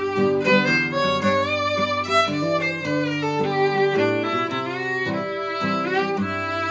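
Old-time fiddle and acoustic guitar duet playing a waltz: the fiddle carries the bowed melody while the guitar keeps a steady strummed bass-and-chord accompaniment.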